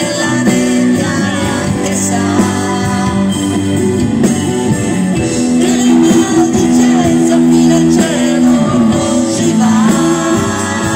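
Live band playing amplified pop-rock music, with electric bass and electric guitar, picked up from among the audience.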